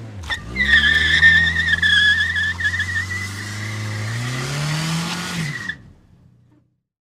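Car tyres squealing in a long skid over a running engine, with a sharp click just before the squeal starts. The engine note rises near the end, and everything cuts off about six seconds in.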